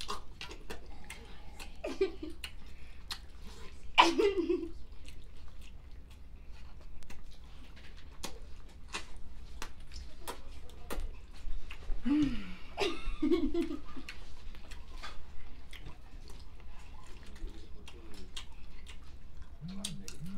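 Eating sounds close to the microphone: chewing and lip smacking, many short wet clicks one after another, with a few brief voice sounds about 2, 4 and 12 to 13 seconds in and near the end.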